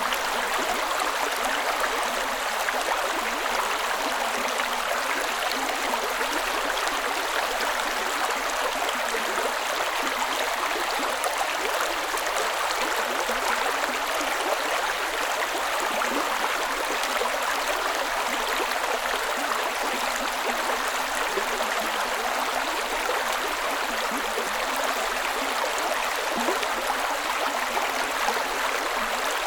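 Creek water running and splashing over rocks in a steady, unbroken rush.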